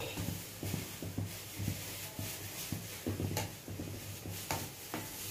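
Punugulu (rice and urad dal batter fritters) deep-frying in hot oil in an iron kadai, the oil sizzling steadily. A steel slotted spoon scrapes and clinks against the pan several times as the fritters are turned and lifted out.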